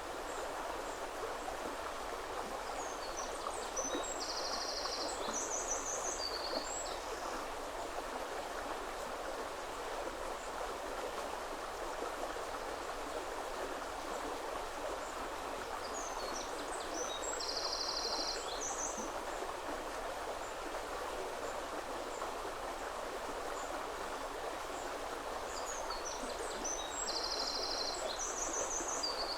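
River water flowing steadily, with a small songbird singing three short, high phrases with fast trills, about ten seconds apart.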